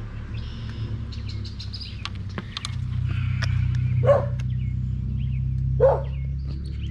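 A dog barking twice, about two seconds apart, with small bird chirps between the barks, over a steady low rumble.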